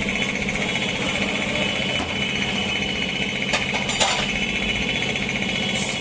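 Tyre-changing machinery running with a steady mechanical hum while a motorcycle tyre is worked onto its rim, with a few sharp clicks about three and a half to four seconds in.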